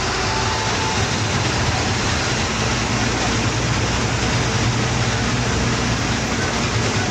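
Bus engine running steadily under way, with a low hum over constant road and rattle noise, heard from inside the moving bus.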